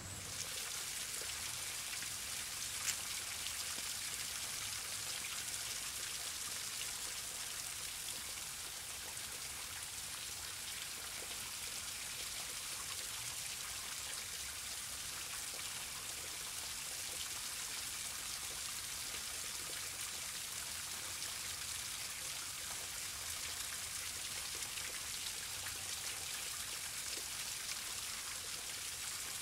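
Steady rain falling, an even hiss, with one sharp click about three seconds in.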